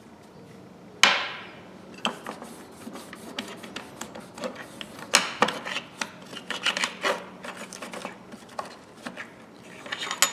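A sharp metal clank that rings briefly about a second in, then irregular rubbing strokes and small metallic clicks as the locking pliers' adjusting bolt is handled and polished by hand.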